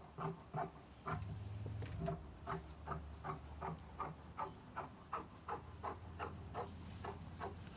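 Fabric shears snipping steadily through thick, backed crushed velvet, a run of short crisp cuts about three a second. A low hum sits underneath from about a second in.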